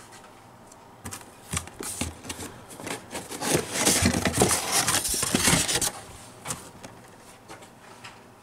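Corrugated cardboard scraping and rubbing as a divider is pulled out of a cardboard shipping box and the box is handled, with small knocks throughout; it is loudest and busiest in the middle and eases off for the last couple of seconds.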